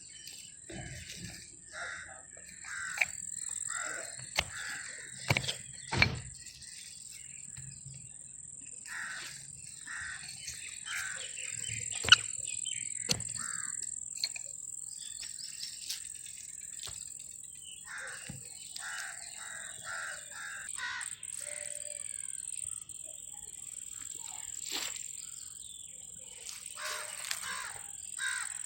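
Birds calling repeatedly in short harsh calls, over a steady high-pitched tone, with a few sharp knocks, the loudest about twelve seconds in.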